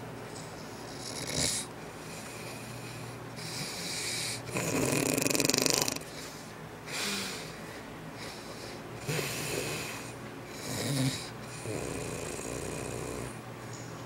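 A person snoring in irregular rasping snorts, about seven in all, the longest and loudest about five seconds in.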